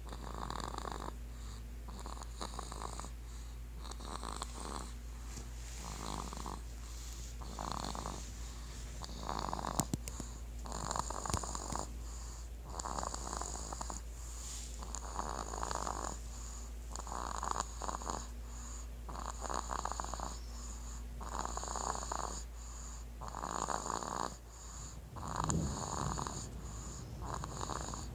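A baby snoring, a short snore on each breath roughly every one and a half to two seconds, over a steady low hum.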